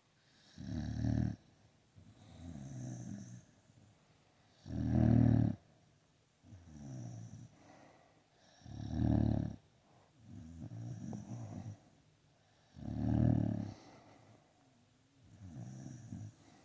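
A dog snoring in its sleep, a loud snore about every four seconds with a softer snore between each pair.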